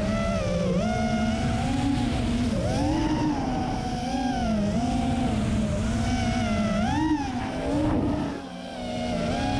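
FPV racing quadcopter's motors and propellers whining from on board, the pitch rising and falling with the throttle through the turns. The sound drops briefly near the end, as when the throttle is cut, then picks up again.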